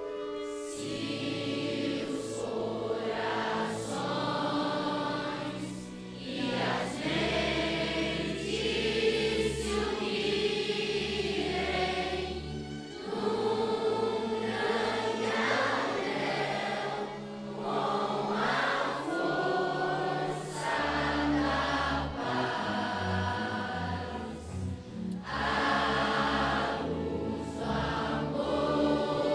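A large choir of young voices singing with a string orchestra of violins and cellos, sustained low string notes under the sung phrases.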